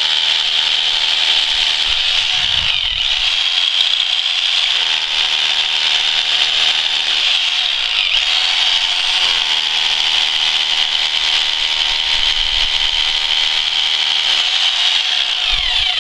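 Bosch Bulldog rotary hammer drill boring into limestone, running continuously with a loud hissing grind and a low hum that comes and goes in stretches as it bites.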